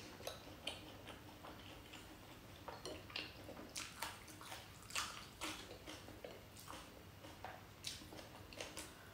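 A person eating spicy noodles up close, with irregular wet mouth clicks and smacks as she chews. The sounds are faint, with the loudest smack about halfway through.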